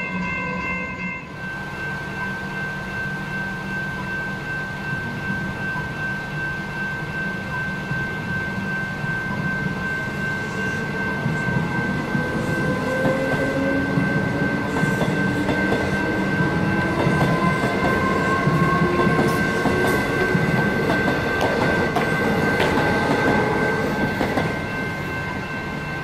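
Level crossing bells ringing steadily as a Metro X'Trapolis electric train passes over the crossing. Its motors whine upward in pitch as it picks up speed, with wheels clicking over the rails, growing louder until it clears the crossing near the end.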